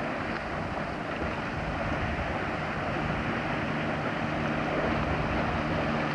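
Motorboat engine running with a steady low drone, under wind and water noise, growing slightly louder toward the end.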